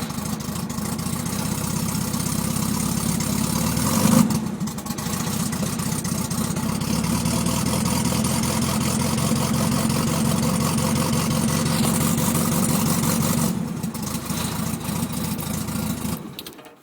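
Volkswagen Beetle engine idling and running rough, which the owner suspects is a misfire. It briefly gets louder about four seconds in, drops in level later, and stops abruptly near the end.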